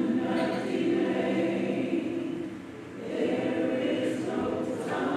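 A choir singing a slow gospel song with long held notes. It fades briefly about two and a half seconds in, then swells again.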